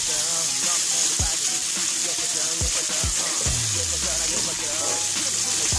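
Trout fillets frying in oil in a nonstick pan, a steady sizzle. Background music with deep bass notes sliding downward plays over it.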